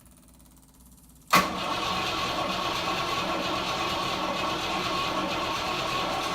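Rover P5B's starter motor cranking the 3.5-litre V8 for about five seconds, starting abruptly about a second in, without the engine catching: no spark, as the HT lead is not connected.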